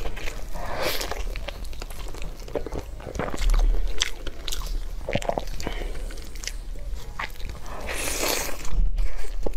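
Close-up biting and chewing of a large browned piece of meat held in the hands, with crunches that come in clusters about a second in, around four to five seconds, and loudest near the end.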